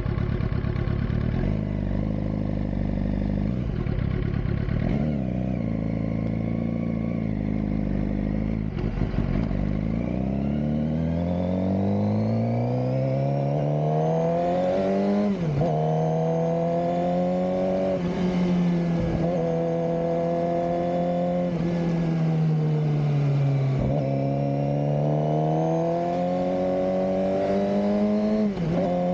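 2007 Suzuki GSX-R600's inline-four engine running at low revs, then accelerating, its note climbing, with brief sharp dips as gears are changed several times.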